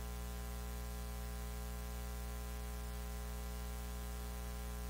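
Low, steady electrical mains hum with a faint hiss, carried through the microphone and streaming audio chain.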